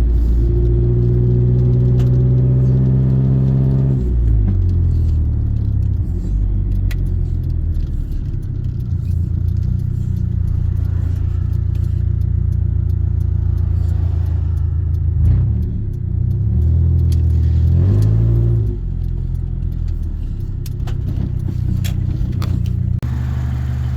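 A 2000 Honda CR-V's engine running while the car is driven. The engine note climbs over the first few seconds, then drops as in a gear change, and its pitch shifts again later on.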